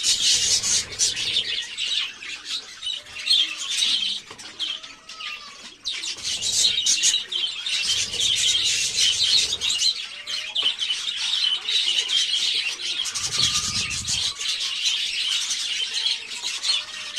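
A flock of small aviary birds chirping and chattering together, a dense, continuous twittering of many overlapping high calls.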